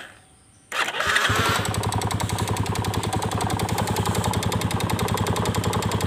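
Yamaha Vega Force fuel-injected single-cylinder motorcycle engine, electric-started: it cranks briefly, catches about a second in, then idles with a rapid, even ticking like a noisy valve chain. The valve chain and piston are already new, and the mechanic tentatively blames the piston.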